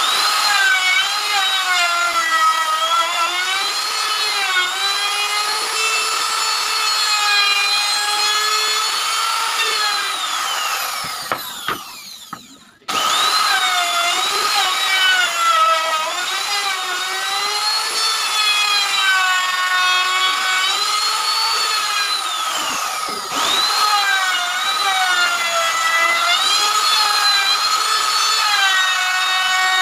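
Makita trim router running at high speed as it cuts along the edges of a wooden cabinet door frame, its whine wavering in pitch as the bit takes load. About ten seconds in, the motor is switched off and winds down, then starts again abruptly a second or two later. About two-thirds of the way through, the speed dips briefly and recovers.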